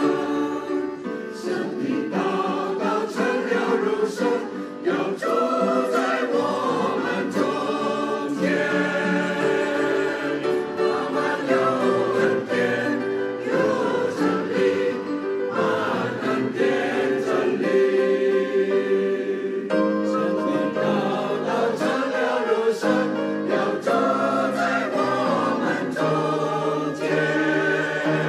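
Church choir singing an anthem, several voices together holding and moving through sustained chords.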